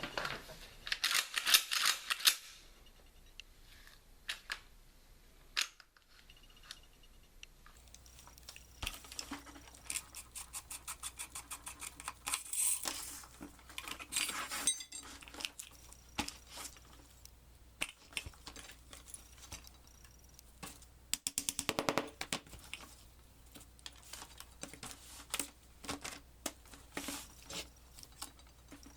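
Steel parts of a Mossberg 590 pump shotgun clicking, sliding and clattering as it is field stripped by hand. Scattered clicks run throughout, with louder bursts of rattling near the start, about twelve seconds in, and about twenty-two seconds in.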